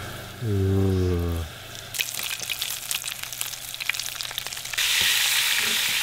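Flour-dusted spot prawn heads frying in hot oil in a cast-iron skillet: a crackling sizzle starts suddenly about two seconds in and becomes a louder, steadier hiss near the end. Before it there is a low hum lasting about a second.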